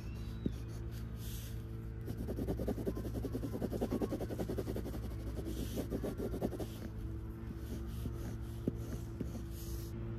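Graphite lead-holder pencil scratching on paper in quick back-and-forth hatching strokes for a few seconds in the middle, over a steady low hum.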